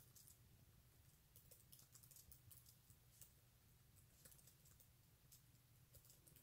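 Near silence: faint room tone with a low hum and scattered soft, irregular clicks.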